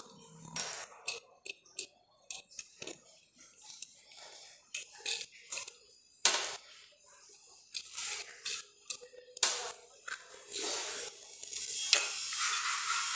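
Gloved hands handling and taking apart an aluminium soft-plastic lure mould: irregular metal clicks, knocks and small clinks, with rubbing and scraping about ten seconds in and again near the end.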